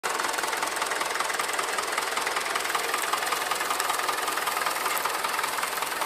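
Vintage grey tractor's engine running steadily, with a fast, even rhythm of firing strokes.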